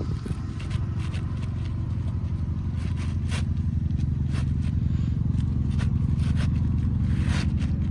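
Asphalt roof shingles scraping and rustling as they are handled and slid back into place, with a few short sharp scrapes. Under them runs a steady low rumble, like an engine idling.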